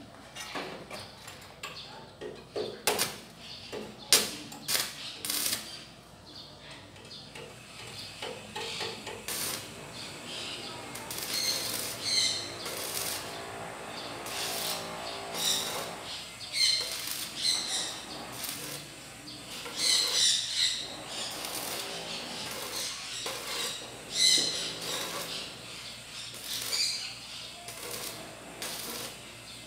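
Stick (arc) welding on a steel frame: a few sharp clicks and taps at first, then the arc crackling and sizzling in runs that start and stop.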